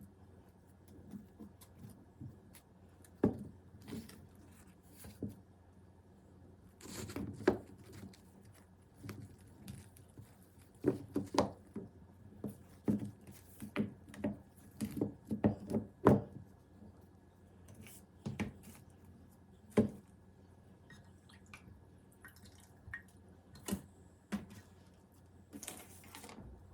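Irregular small taps, clicks and handling noises from hands working damp marimo moss balls and Anubias onto small rocks. They are busiest in the middle.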